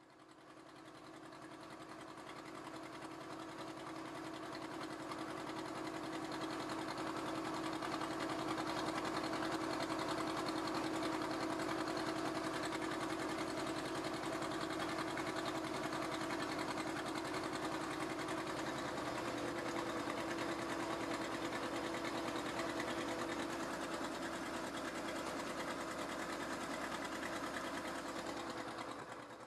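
A steady, fast-chattering mechanical drone with a few held tones. It fades in over the first several seconds, holds level, and fades out near the end.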